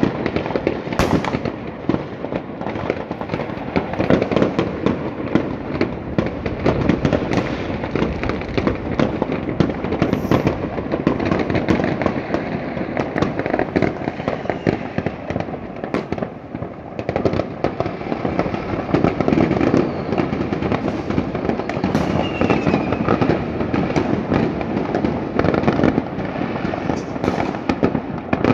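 Many fireworks and firecrackers going off across a city at once: a dense, unbroken crackle of bangs, with some louder bangs standing out.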